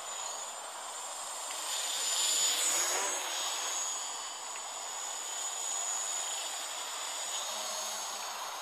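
Gaui 330X-S quadcopter's electric motors and propellers whining in flight, a steady high whine that swells loudest as it passes close about two to three seconds in, then eases off.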